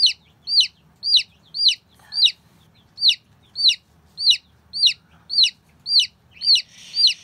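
Injured baby chick peeping loudly and steadily, about two high calls a second, each rising then falling in pitch, while held in gloved hands.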